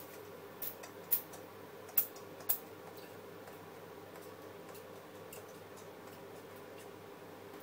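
About four short, sharp clicks in the first two and a half seconds, then a few fainter ones: a hand pump bottle of low-calorie cooking spray being squirted over potato chips on a baking tray. A faint steady hum runs underneath.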